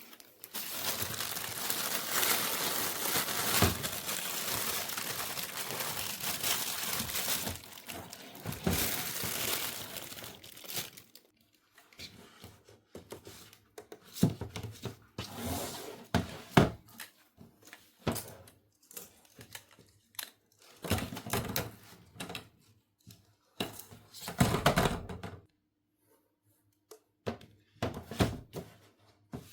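Toy packaging being unwrapped: a steady crinkling and tearing for about the first seven seconds, then scattered crinkles, taps and knocks as the box and its parts are handled.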